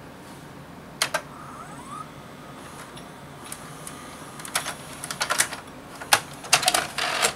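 Samsung SV-650B VCR's cassette mechanism running its eject cycle. A small motor whines faintly under a series of sharp plastic and metal clicks and clacks, which come more often toward the end and finish in a short rattling clatter.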